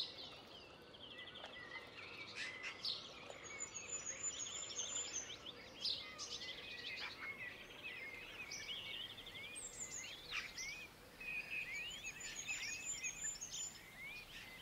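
Several small birds chirping and trilling faintly, short rising and falling whistles and rapid trills coming one after another over a faint background hiss.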